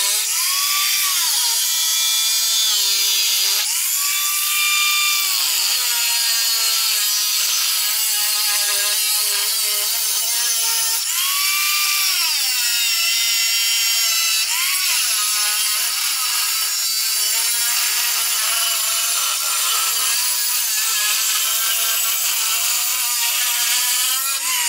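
Hand-held power tool with an abrasive cutting disc cutting through steel plate. The disc whines steadily, its pitch sinking and rising several times as the cut loads and frees the motor.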